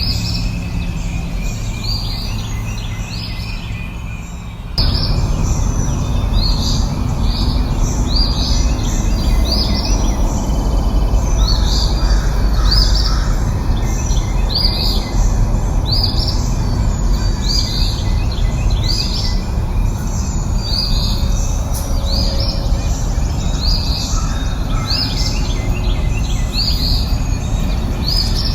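A small bird chirping over and over, a short high note about once a second, over a steady low background noise that turns suddenly louder about five seconds in.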